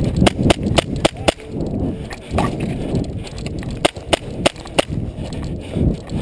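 Airsoft gas blowback pistol, a Tokyo Marui Hi-Capa 4.1, firing sharp snapping shots: a quick string of five, one more about a second later, then another string of four. Heavy breathing and movement noise run underneath.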